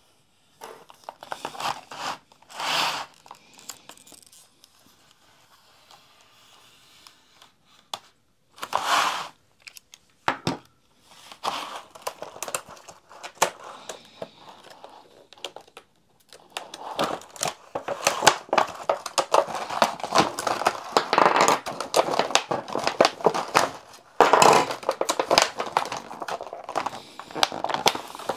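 Clear plastic blister packaging being worked open and pulled apart by hand, crinkling and crackling: a few short separate bursts in the first half, then steady crinkling through the second half.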